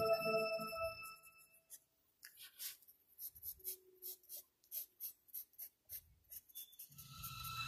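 Wooden Ticonderoga graphite pencil scratching on drawing paper in short sketching strokes, about three a second. Background music fades out in the first couple of seconds and comes back near the end.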